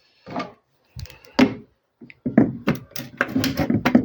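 Plastic front of a refrigerator vegetable drawer being pried and worked loose at its side clips: a few separate knocks and clicks, then a quick clatter of clicks and taps in the last two seconds.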